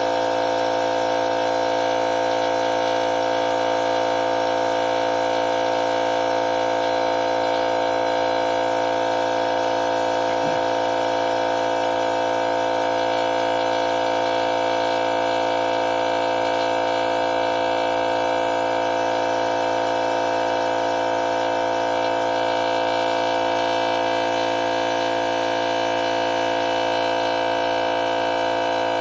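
DEWALT FLEXVOLT 60V cordless 2.5-gallon air compressor running with a steady, even hum as its pump fills the tank toward its 135 psi cut-off.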